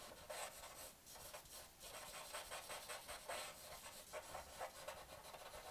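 Charcoal stick scratching and rubbing on drawing paper in quick, repeated short strokes, faint.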